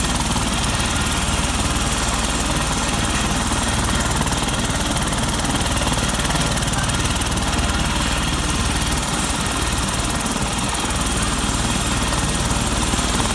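Helicopter running steadily: loud, unbroken engine and rotor noise with a fast, even low throb from the blades.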